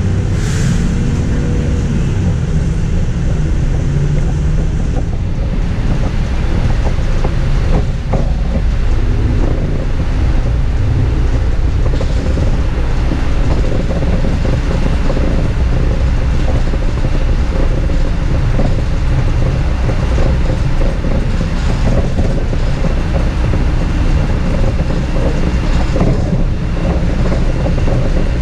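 Steady low rumble of a moving bus heard from inside the cabin, with a brief high hiss about half a second in.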